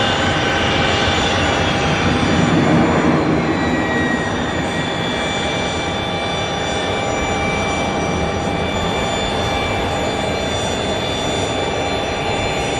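Twin turbofan engines of a Bombardier Challenger 300 business jet running as it moves along the runway: a steady rushing noise with several steady high whines over it, a little louder in the first few seconds.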